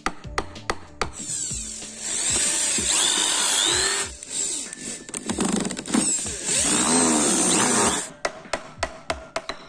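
Handheld electric drill boring into a wooden toy car body. It runs in two stretches of about three seconds each, with a short pause between them and its pitch sweeping as the bit bites. Light taps come at the start and near the end.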